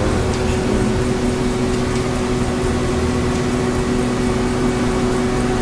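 Steady electrical hum of powered machinery over a constant rushing drone, with no change in pitch or level.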